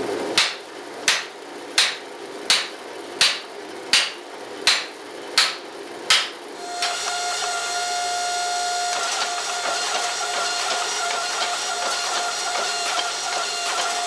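Hand hammer striking a handheld drift into a hot steel axe billet on the anvil, nine sharp ringing blows at an even pace, about one and a half a second. Then a hydraulic forging press runs with a steady whine as the hot billet sits between its dies.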